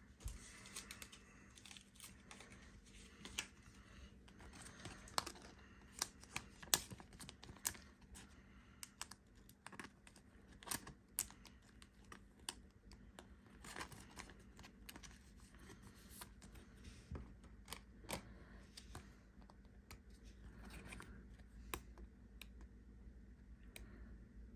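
Faint, irregular clicks and crinkles of a thin clear plastic card sleeve and trading cards being handled as a card is sleeved.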